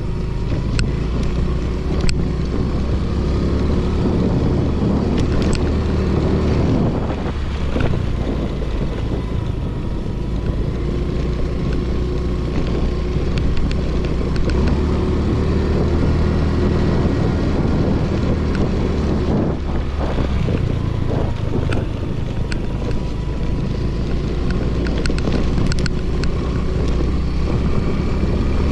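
Small scooter engine running steadily while riding over loose sand, with wind buffeting the microphone. The engine note eases off briefly a couple of times.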